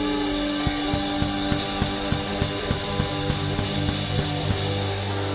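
Live rock band playing an instrumental passage: electric guitar chords held over a steady drumbeat of about three beats a second.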